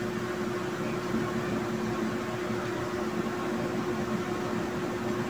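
Steady room hum and hiss with a single constant pitch, the sound of a running appliance in a small room.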